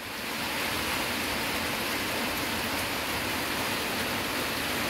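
Steady rain falling on trees and vegetation: an even hiss that swells in over the first half second and then holds level.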